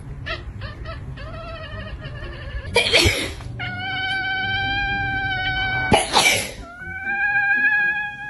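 A person sneezes twice, about three and six seconds in, and each time a cat answers with a long, level, drawn-out meow. Before the first sneeze the cat gives a run of short wavering meows.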